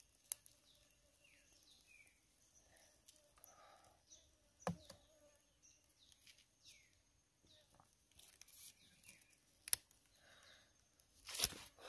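Quiet outdoor ambience with a small bird giving short falling chirps now and then, and a few sharp clicks and taps, the loudest about five seconds in and another near the end.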